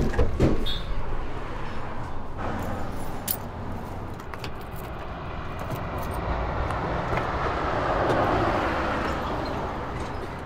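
A door knocks open at the start, then steady outdoor road-traffic noise with a low rumble, swelling as a car drives past about eight seconds in, with a few light clicks.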